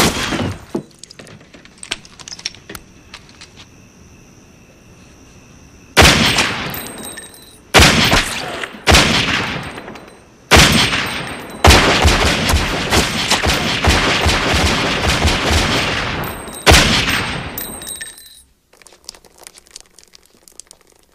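Handgun gunfire: a shot right at the start, a lull, then single shots a second or two apart from about six seconds in, turning into rapid fire that runs for about six seconds and stops about eighteen seconds in.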